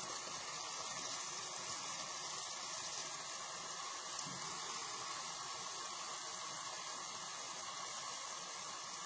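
Risotto of rice and cod simmering in a pan with broth, a steady bubbling hiss as the broth cooks off.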